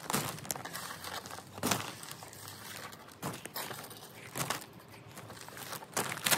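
Black plastic rubbish bag rustling and crinkling as it is handled, in short bursts a few times.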